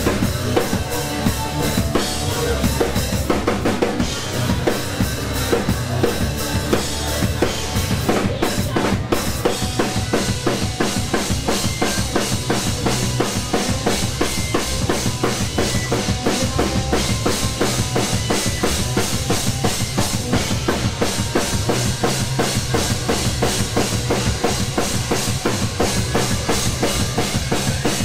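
A rock band playing live: a fast, dense drum beat with bass drum and snare under electric guitars.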